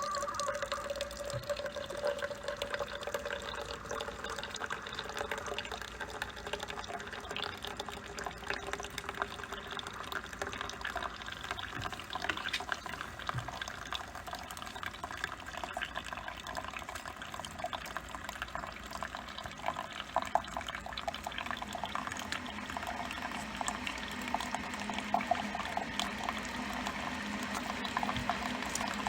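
Water heating and bubbling as coffee brews, a steady liquid hiss with many small crackles and pops that grows fuller near the end as it nears the boil.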